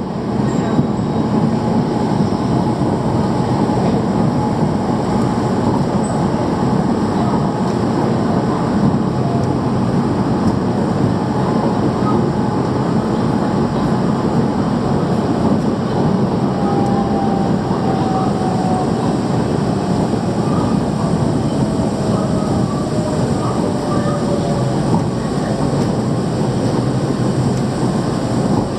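Bangkok MRT Yellow Line rubber-tyred monorail train in motion, heard from inside the car: a steady, continuous running rumble. Faint whining tones slide gently down in pitch about halfway through.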